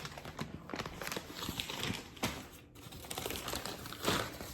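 Plastic packaging crinkling and rattling as it is rummaged through by hand, with many light, irregular clicks and one louder crinkle about four seconds in.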